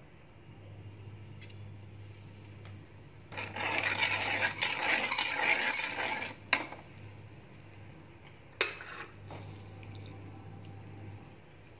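Metal spoon scraping and stirring around the bottom of an aluminium kadhai for about three seconds, then two sharp knocks of the spoon against the pan.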